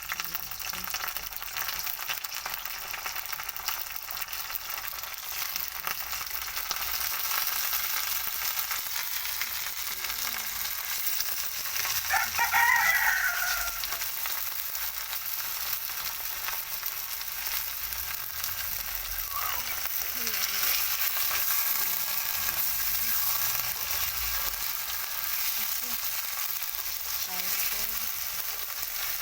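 Chicken frying and sizzling in hot oil with onions and potatoes in a kadhai, stirred now and then. About twelve seconds in, a rooster crows once in the background.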